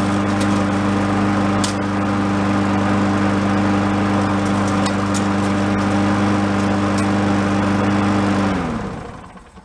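Craftsman push mower's small single-cylinder engine running at a steady speed on a test run. About eight and a half seconds in it is shut off, its pitch dropping as it winds down.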